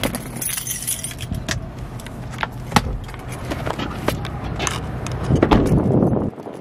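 Handling noise: scattered sharp clicks and rustling as a phone is moved about, over a steady low hum that cuts off suddenly near the end.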